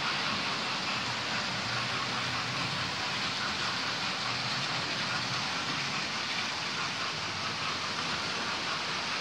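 Model trains running on the layout's track: a steady, even whir of wheels on the rails and small motors.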